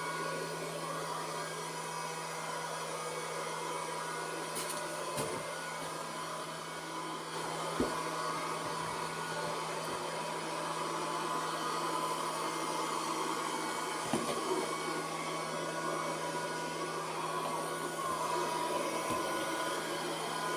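Robot vacuum cleaner running: a steady motor hum, with a few light knocks scattered through it.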